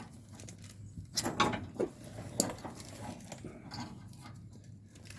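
Clinks and rattles of parking brake cable hardware being handled and hooked together: a cluster of short clicks about a second in and a single sharp click about halfway through.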